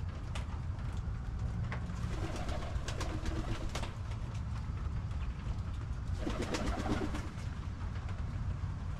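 Domestic pigeons cooing, in two bouts: one about two seconds in and another about six seconds in. Underneath is a steady low rumble with scattered sharp clicks.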